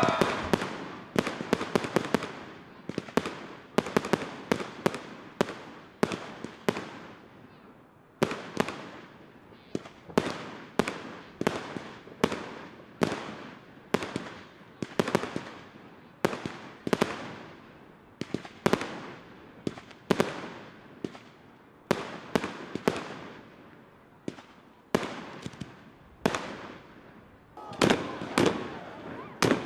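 Professional aerial fireworks going off in quick succession: a steady run of sharp bangs, about two a second, each trailing off with an echo. Spectators' voices join in near the end.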